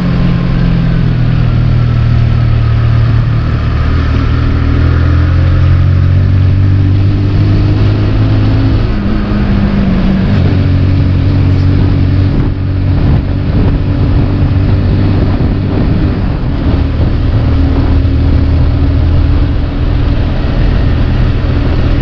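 Motorcycle engine running steadily while under way on the road, with a continuous low hum.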